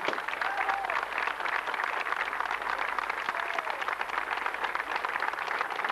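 Crowd of people clapping their hands: dense, steady applause.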